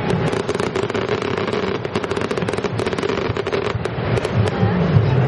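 Aerial fireworks going off, a dense run of rapid small crackles and pops.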